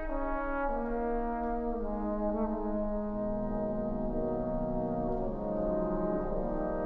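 Trombone choir playing a slow, sustained chorale: full held chords, with the lower voices stepping to new notes a few times and a low bass note entering about three seconds in.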